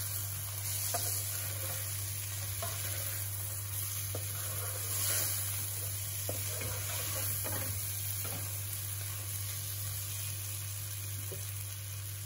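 Spiced raw green mango pieces sizzling in oil in a pan while a wooden spatula stirs them, with light scrapes and knocks of the spatula against the pan every second or two. A steady low hum runs beneath.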